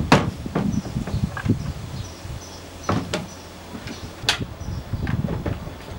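Irregular knocks and clacks of a melamine box being handled and seated on a plastic wheelie bin, with sharp strikes at the start, about three seconds in and, loudest, a little after four seconds.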